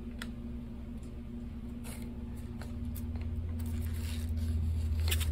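Faint short scratches of a scribing point drawn along a desert ironwood handle block, a few separate strokes, over a steady low hum that grows louder in the second half.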